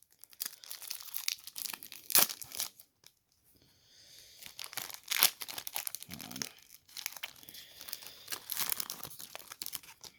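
Panini trading-card pack wrapper being torn open and crinkled by hand, crackling in irregular spells with a couple of sharp, louder tears about two and five seconds in.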